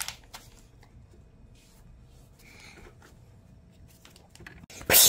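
A paperback book's page flipped over with a quick paper swish, followed by a few light taps of hands on the book. Near the end comes a loud burst of paper rustling as the book is handled.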